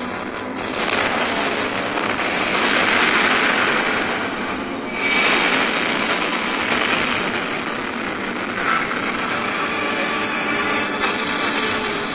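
Loud rushing, roaring noise like a jet engine: the energy-blast and whoosh sound effects of an animated robot battle. It swells and fades several times in the first half.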